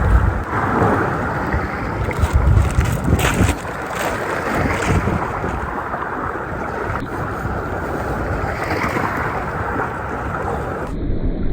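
Strong wind buffeting the microphone, gusty for the first few seconds and then steadier, with a low rumble and hiss throughout.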